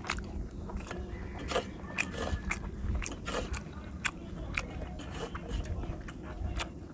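Close-miked chewing and wet mouth clicks of someone eating a handful of rice and fish curry, with fingers scraping and pressing rice against a metal plate. Many short, sharp clicks throughout.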